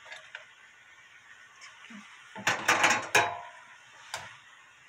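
Cookware handled at the stove: a short clatter of clinks and knocks about two and a half seconds in, with one more knock near the end, over a faint steady hiss.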